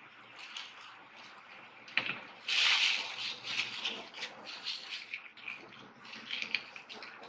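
Thin plastic shopping bags rustling and crinkling as they are handled, with a sharp click about two seconds in and the loudest crinkle just after it.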